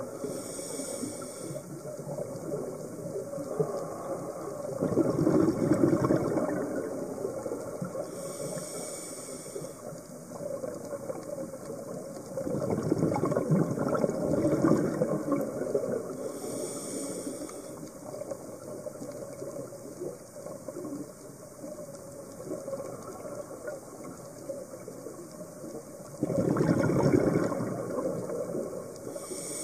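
Scuba diver's breathing recorded underwater: a short high regulator hiss on each breath in, then a longer bubbling rush of exhaled air, repeating about every eight seconds.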